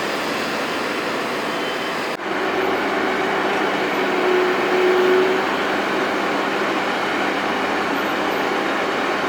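Steady rush of road traffic noise. It breaks off abruptly about two seconds in and resumes, with a steady tone rising and falling over the next few seconds.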